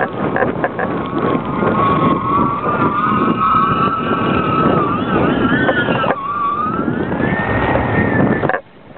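Strong wind rushing over a camera flown on a kite line, with a loud wavering whistle in the wind that bends up and down like a siren and glides upward late on. It all cuts off abruptly near the end.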